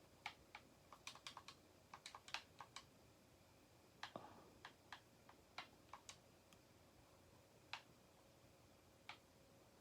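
Faint, irregular typing on a computer keyboard: quick clusters of keystrokes in the first few seconds and again mid-way, then only a few scattered single clicks.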